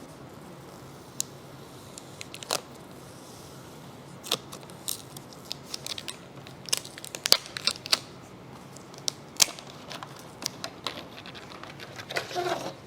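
Unboxing handling noises: irregular sharp clicks and taps with packaging crinkling and tearing, and a denser burst of crinkling near the end.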